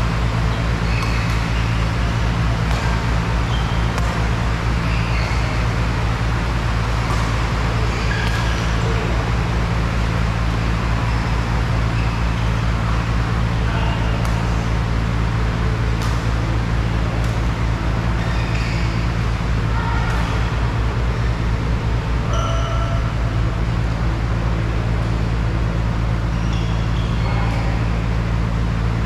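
Steady low hum throughout, with scattered short high squeaks of court shoes and occasional sharp clicks of rackets hitting a shuttlecock during badminton play.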